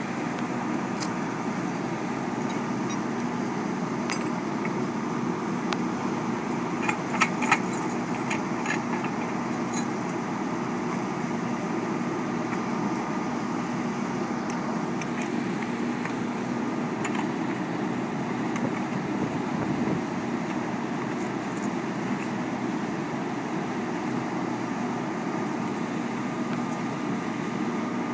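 Fire engine's diesel engine idling steadily, with a few sharp clinks about seven seconds in.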